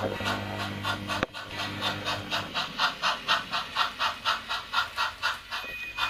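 HO-scale Bachmann 4-4-0 model steam locomotive running, its sound decoder playing rhythmic steam chuffs at about five a second over a low hum that stops partway through. There is one sharp click about a second in, and a steady whistle tone starts near the end.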